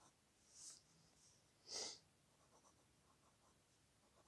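A 14k flex fountain pen nib scratching across cotton paper in two short strokes, a faint one about half a second in and a louder one near two seconds, with near silence around them.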